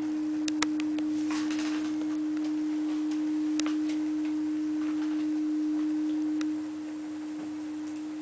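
Steady low pure tone from a tracking test record, played on a Gradiente RP-II turntable with an Ortofon MC-1 Turbo moving-coil cartridge, with a few faint clicks. The tone drops in level about six and a half seconds in.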